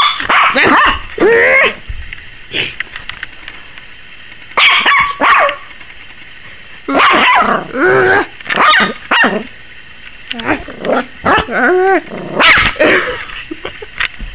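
A 21-week-old Yorkshire terrier puppy barking and yipping in high, short calls, in about five volleys separated by brief pauses.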